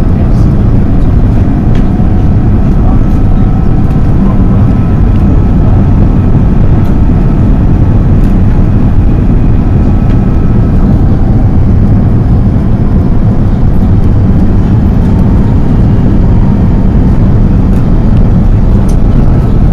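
Airbus A330-200 jet engines and rushing airflow heard from inside the passenger cabin during the landing approach: a loud, steady noise with faint whining fan tones over it.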